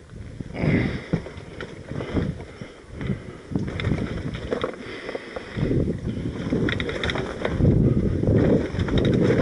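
Enduro bike ridden slowly over a rocky trail: irregular rumbling bursts and knocks as it bumps over the stones, growing louder about halfway through.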